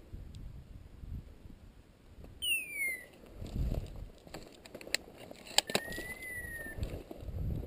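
Footsteps of a hunter walking through dry scrub and grass on a hillside, irregular scuffing steps about a second apart. About two and a half seconds in there is a short downward-sliding whistle. Later come a couple of sharp clicks and a thinner held whistle-like tone.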